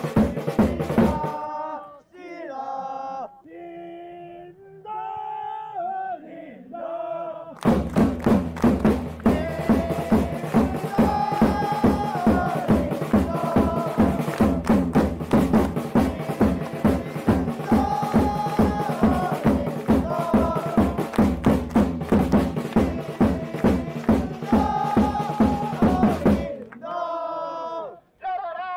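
Football supporters' chant with a bass drum beating steadily under sung voices. About two seconds in, one chant ends and a single voice sings the next chant's line alone for a few seconds. The chanting and drum then come in together and repeat the line, and near the end a lone voice starts again.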